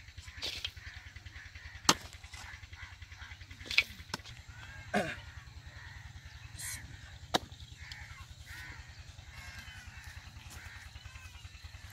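A digging tool's blade striking dry, clumpy earth, a few sharp knocks in the first half, with birds calling and chirping in the background.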